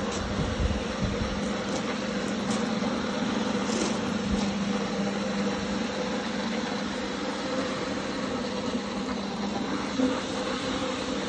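Rotary floor scrubber running steadily as its brush scrubs a foam-soaked rug: a constant motor hum over an even wet scrubbing hiss, with a few low knocks near the start.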